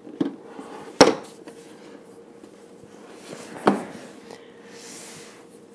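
A stiff white cardboard box is handled and its lid opened on a stone countertop. A few knocks, the sharpest about a second in and another near the end, then a soft rubbing of cardboard.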